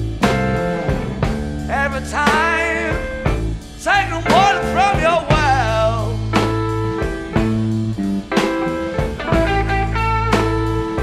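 Blues-rock band recording without vocals: a lead electric guitar plays bent notes with vibrato over bass and drums.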